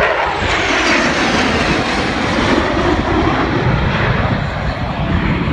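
Loud jet roar of F-16 fighter jets flying past, with the pitch sweeping down in the first second or so, then a steady roar.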